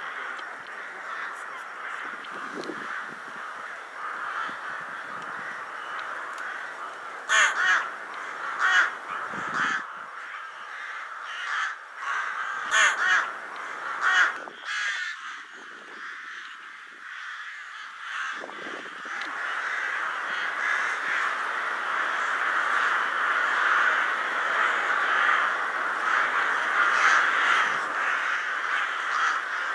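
A large flock of rooks calling: a dense, continuous din of cawing, with several loud single caws close by about a third of the way through, and the chorus growing louder in the second half.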